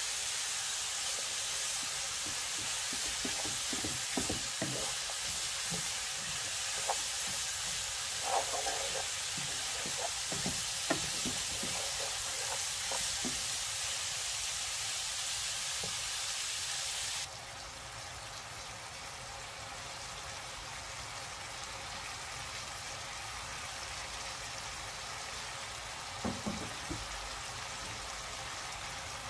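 Shredded vegetables sizzling as they stir-fry in a hot cast-iron pan, with a wooden spatula knocking and scraping against the pan as they are turned. The sizzle drops quieter a little past halfway.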